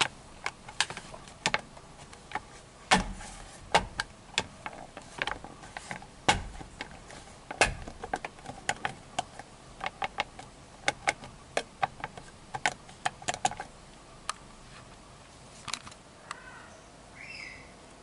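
Irregular plastic clicks from the steering-wheel horn pad of a Suzuki Katana being pressed many times, with no horn sounding.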